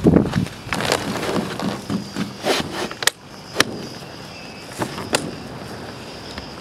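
A windsurf sail being rigged and handled: rustling of the sail cloth in the first second, then a string of sharp clicks and knocks from the rig, about six spread over several seconds, settling to a faint steady hiss.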